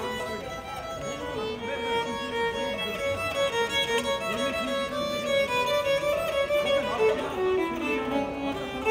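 Violin music: a single melody of held notes.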